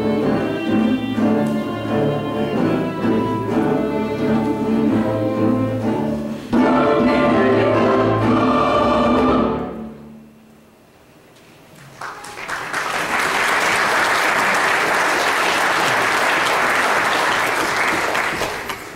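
Church choir singing with violin, cello and piano, swelling to a loud final chord about six seconds in that dies away; after a brief hush the congregation applauds, fading near the end.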